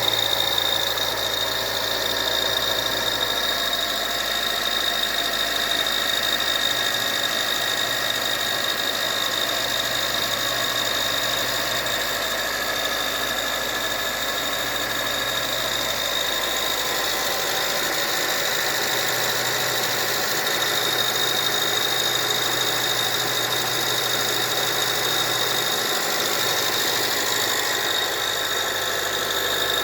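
Mitsubishi Pajero Mini's turbocharged engine idling with a steady high squealing (kyuru-kyuru) noise over it. This is the noise it makes when started cold, which fades as the engine warms.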